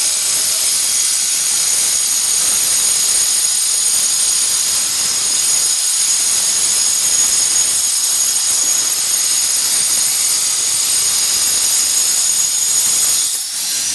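Angle grinder running steadily under load, its disc cutting through taped glass with a high whine over a continuous grinding hiss.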